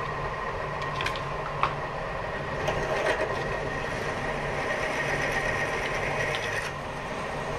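Mill-drill running with its twist drill cutting into a metal block: a steady motor hum under a high, even cutting whine that grows stronger past the middle, with a few light clicks in the first few seconds.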